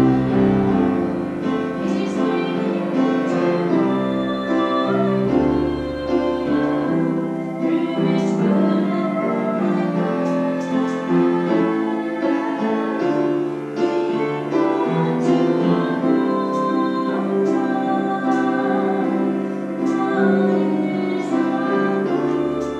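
Instrumental music led by piano, with sustained notes and slowly changing chords.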